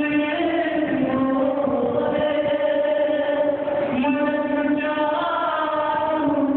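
A man's solo voice chanting a mourning elegy in slow, long-held melodic notes that step up and down in pitch, with short breaks for breath about every two seconds.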